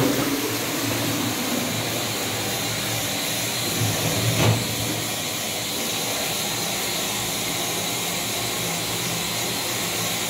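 Toilet cistern refilling after a flush: the fill valve hisses steadily with a faint low hum. A short, louder rush of water comes about four and a half seconds in.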